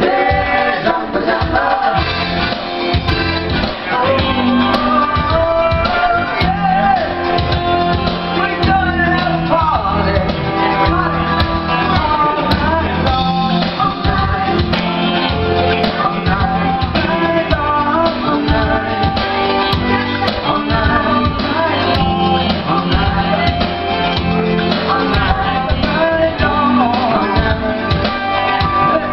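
A live cover band playing a rock or pop song: women's voices singing into microphones over electric guitar and band accompaniment, loud and continuous.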